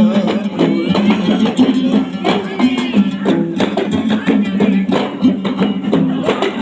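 Gambus, the plucked lute, playing a traditional Kei samra tune with a steady rhythm of repeated low notes, under regular percussion hits.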